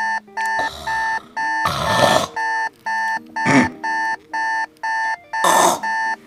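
An alarm beeps over and over, about two beeps a second, waking a sleeper. A few short bursts of noise come over the beeping as he stirs.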